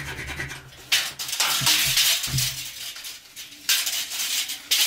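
A long metal square scraping and clattering against a corrugated steel container wall as layout lines are marked on it, in three scratchy stretches with short pauses between.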